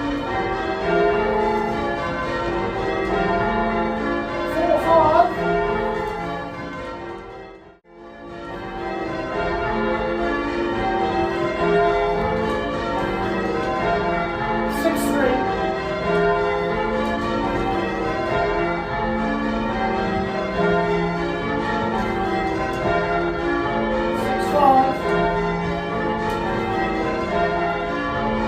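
A ring of eight church bells being rung in changes: a Gillett & Johnston octave cast in 1937, with two Thomas Wroth bells of 1750 tuned to match, and a tenor of about 16 cwt in F. The ringing fades out briefly about eight seconds in and picks up again at once.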